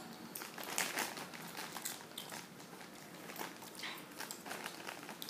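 Popcorn being chewed close to the microphone: irregular soft crunching and crackling.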